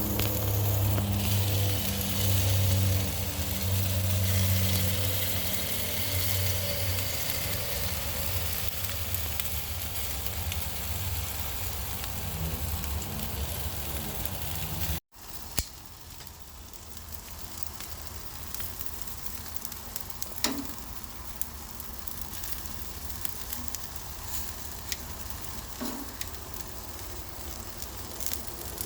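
Food sizzling as it cooks, with a steady low hum under it in the first half. After a cut about halfway the sizzling goes on more quietly, with a few sharp clicks.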